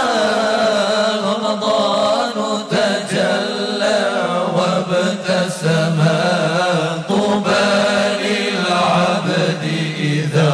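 Vocal nasheed music: a male voice chanting a slow, ornamented melody without clear words, over a steady low held vocal note.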